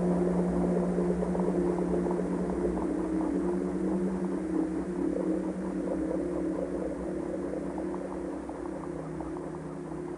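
Ambient drone music: steady low held tones under a fine crackling texture, slowly getting quieter as the track fades out.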